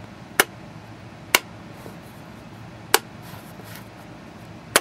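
A small plastic cup carrying a piezo disc being set down on a metal magnet base again and again, giving four sharp clicks about a second or more apart.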